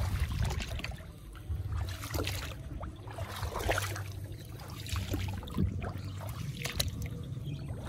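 Wind rumbling on the microphone, with scattered rustles and small splashes of shallow, muddy rice-field water.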